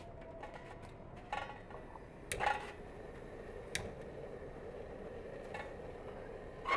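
Metal clinks and knocks from a sheet-metal charcoal grill being handled. There are about five separate knocks, the loudest about two and a half seconds in, over a faint steady hum.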